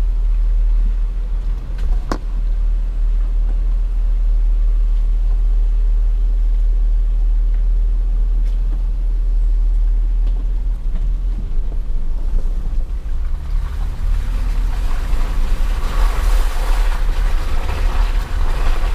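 Off-road vehicle driving along a dirt trail, picked up by a camera on its hood: a steady low rumble from the engine and running gear. There is one sharp click about two seconds in, and a hiss joins in and grows louder over the last few seconds.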